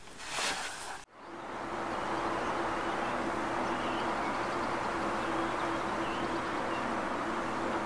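A short rustle, then from about a second in a steady mechanical hum under an even rush of noise, unchanging throughout.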